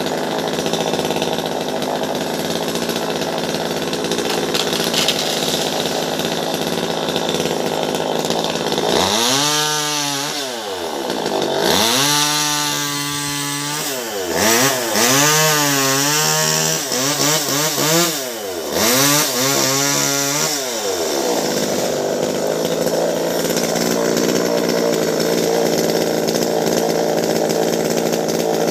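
Two-stroke top-handle chainsaw running steadily, then its engine pitch swings up and down several times in the middle, before it settles back to a steady run.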